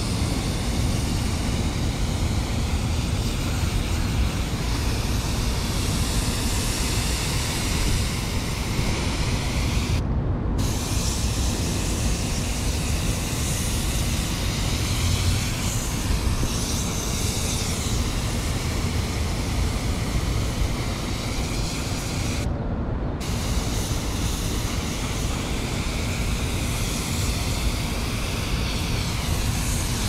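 Water spraying from a Porta Blaster portable coil-cleaning sprayer's wand, rinsing cleaner foam and dirt out through a condenser coil's fins: a steady spray hiss over a low rumble. The hiss cuts out briefly twice.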